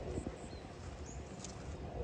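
Footsteps walking at an even pace on a hard path, over a steady hum of distant road traffic, with a few faint bird chirps.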